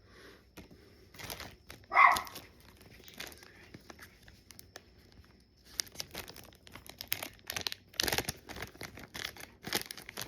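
Foil Pokémon booster pack wrapper crinkling and tearing as it is handled and opened, busiest in the second half. A single short dog bark about two seconds in is the loudest sound.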